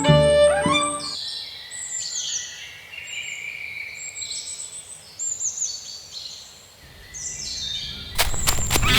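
Background music ends about a second in, giving way to birds chirping, short high calls repeated over a quiet background. Near the end a louder sound with sharp clicks sets in.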